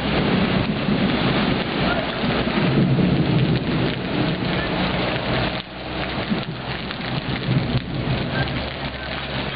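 Steady rain and rushing floodwater, with a heavy truck driving through the flooded street: its engine running and water splashing, loudest in the first half, then falling away.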